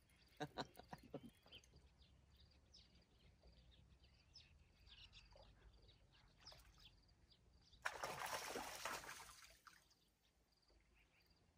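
A hooked trout splashing at the surface for about a second and a half, some eight seconds in, over a steady faint chirping of crickets; a few short clicks sound near the start.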